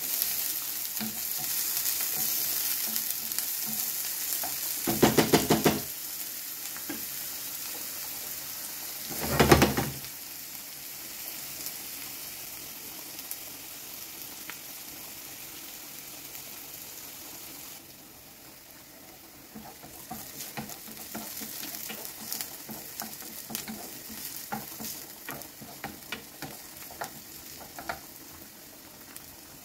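Diced red onion sizzling in olive oil in a nonstick frying pan, stirred with a spatula that scrapes and clicks against the pan. Two brief louder sounds come at about five and nine seconds in, and the sizzle quietens about two-thirds of the way through.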